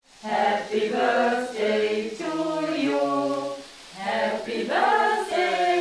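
A small group of men and women singing together without accompaniment, in held notes.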